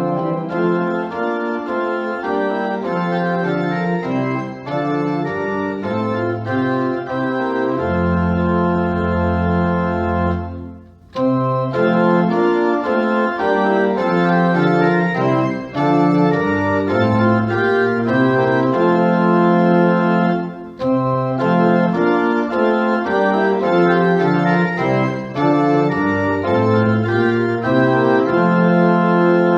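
Organ music: sustained chords over a moving bass line, with a long held low chord that breaks off briefly about eleven seconds in before the playing resumes.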